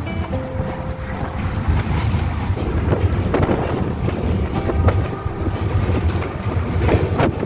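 City bus driving at speed, heard from inside the passenger cabin: a steady low engine and road rumble with wind rushing in through an open window, and scattered knocks and rattles from the body.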